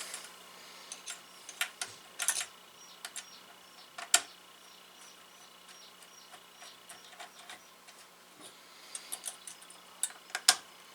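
Irregular light clicks and taps of a CPU heatsink being set on a server processor and its corner screws started with a screwdriver, with sharper knocks about four seconds in and near the end.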